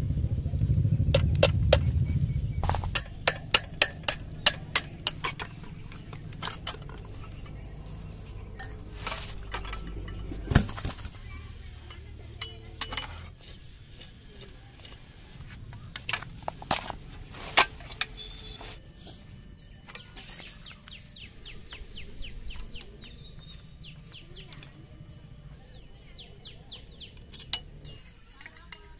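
Spanners and rusty steel parts of a 1992 TVS 50 moped clinking and knocking as the front wheel and handlebar are taken apart by hand. A low rumble fills the first couple of seconds, then comes a burst of sharp metal clinks, then scattered knocks and short quick runs of ticking.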